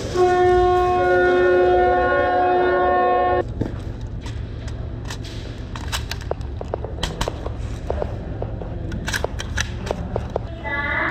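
A horn sounds one steady note for about three seconds. Then come scattered sharp cracks and clicks of airsoft guns firing. The horn note starts again just before the end.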